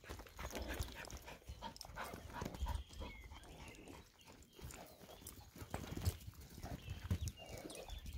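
Hoofbeats of a saddled horse loping around on grassy dirt, an uneven run of dull thuds.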